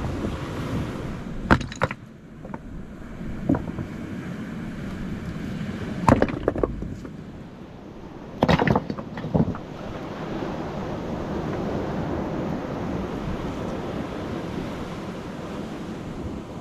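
Surf and wind washing steadily over a rocky shore, with several sharp clacks of stones knocking together as rocks are carried across the cobbles. The clacks come in little clusters over the first ten seconds, the loudest about six and eight and a half seconds in.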